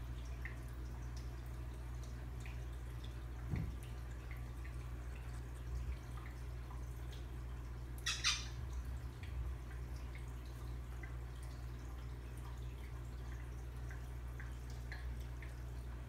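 Quiet room tone dominated by a steady low hum, with faint scattered ticks and one brief sharp sound about eight seconds in.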